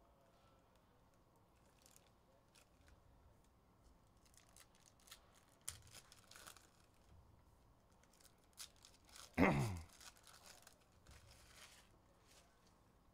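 Foil trading-card pack wrappers crinkling and being torn open by hand, with scattered small crackles. One loud rip with a falling pitch comes about nine and a half seconds in.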